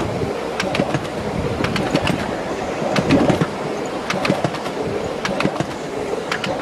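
Miniature railway passenger carriages rolling past on 7¼-inch gauge track, with a running rumble and irregular sharp clicks from the wheels over the rail joints.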